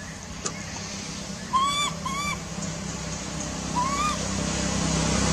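Baby macaque giving three short coo calls, each arching up and then down in pitch, the first two close together and the third about two seconds later. A steady low hum runs underneath and grows louder near the end.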